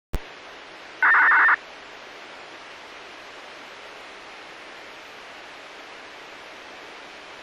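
Radio receiver on a municipal disaster-prevention radio channel: a click as the channel opens, then a steady hiss of the open carrier. About a second in, a loud half-second burst of signalling tones sounds over the hiss, the kind of start signal sent before a broadcast.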